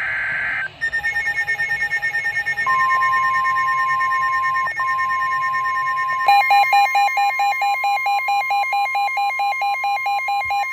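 The last burst of a SAME digital alert header's warbling data tones, then several NOAA weather radios going into alert with rapid beeping. About three seconds in, the steady 1050 Hz NOAA warning alarm tone begins. About six seconds in, another radio adds a louder, rapidly pulsing alert beep.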